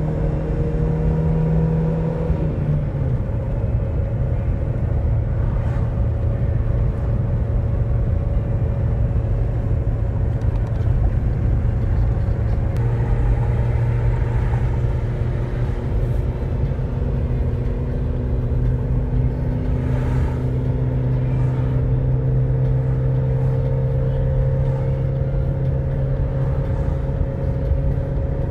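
Chevrolet Cobalt's engine and tyre noise heard from inside the cabin at highway speed: a steady low drone whose engine pitch drops about two and a half seconds in and shifts again about halfway through.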